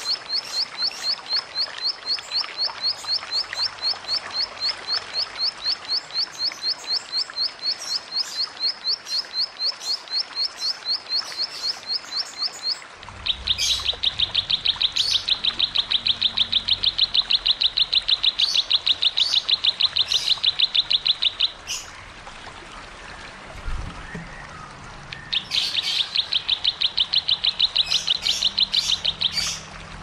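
Rapid-fire 'tembakan' calls of small cici songbirds (ciblek, ciwah and cigun): a quick string of sharp, high notes, about six a second, for roughly the first half. Then comes a louder, denser rolling trill a little lower in pitch, a short pause, and a second such trill near the end, with a low rumble under the trills.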